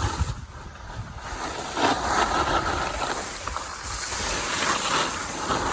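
Wind rushing over the microphone with the hiss of skis sliding on snow, swelling about two seconds in and again near the end.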